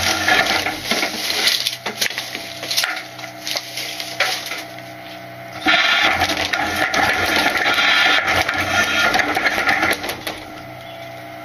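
Load Master Legacy rear-loader garbage truck cycling its packer: a hydraulic whine and squealing, with trash crunching and clattering in the hopper, over the engine running. It comes in two loud stretches, knocks and clatter between them, and falls back to the engine running alone about ten seconds in.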